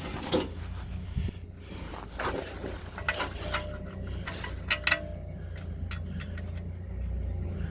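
Scattered metallic clinks and knocks of tools and parts being handled during an oil change, with two sharp clicks close together near the middle, over a low steady hum.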